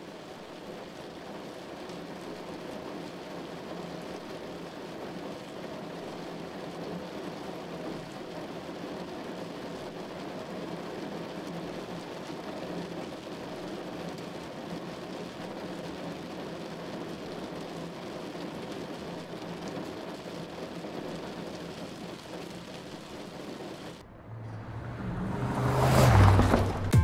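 Rain hitting a car's windscreen and roof, with tyre spray from the wet highway, heard as a steady hiss from inside the moving car. About 24 seconds in it cuts off and a swelling whoosh rises and grows loud.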